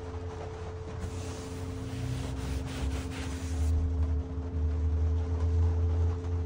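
Rain falling on a trailer's roof and walls, heard from inside as a steady hiss over a deep low rumble that grows louder, with a faint steady hum.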